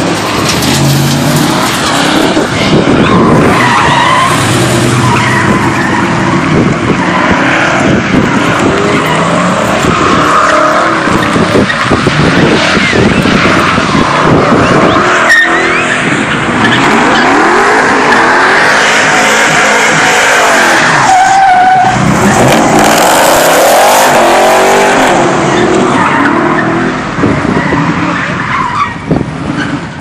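Chevrolet Silverado SS pickup doing donuts: its V8 revving up and down hard while the rear tyres squeal and skid on the pavement. The noise dips somewhat near the end.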